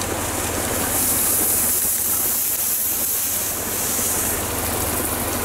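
ATV engine running steadily while its tyres paddle through deep river water, churning and splashing as the quad floats across.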